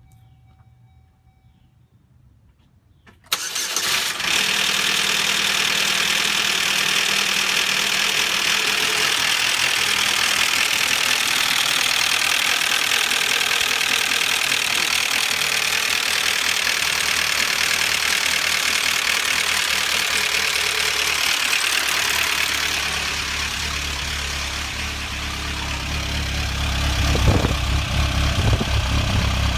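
2004 Chevrolet Cavalier's Ecotec four-cylinder engine starts about three seconds in and then runs with an extremely loud, steady metallic clatter. The clatter comes from the timing chain rattling loose after its tensioner has failed. Near the end the deeper exhaust note at the tailpipe comes to the fore, with a few knocks.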